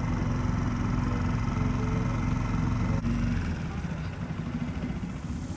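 Inflatable boat's outboard motor running steadily, then easing off a little over three seconds in.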